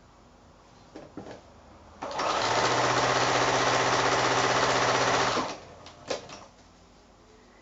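Domestic electric sewing machine running steadily for about three seconds as it stitches a seam joining two quilting fabric squares, starting about two seconds in and stopping a little after halfway. A few light clicks come before and after the run.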